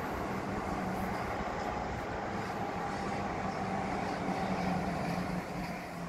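A train running nearby: a steady rumble with a low hum, easing off a little near the end.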